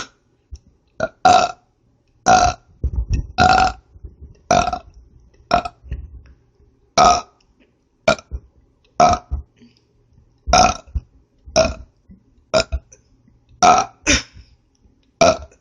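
A woman burping back to back: about fourteen short burps in a row, roughly one a second.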